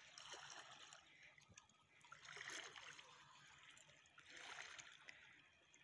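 Near silence with faint water lapping against the rocks at the shoreline, coming in three soft swells about two seconds apart.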